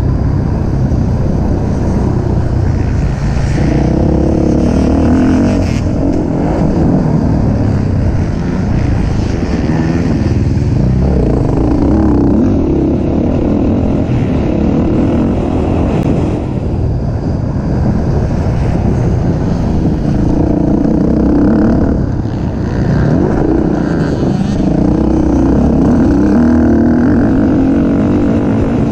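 Racing engine running hard at high revs, its pitch rising and falling again and again as it accelerates and backs off.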